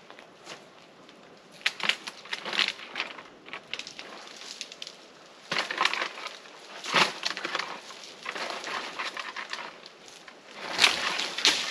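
Dry crunching and crackling in three bouts, about two seconds in, around six to seven seconds, and near the end: dry coconut palm fronds and husk being pulled and broken while trying to get at coconuts.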